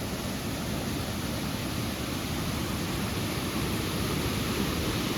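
Waterfall plunging: a steady, even rush of falling water.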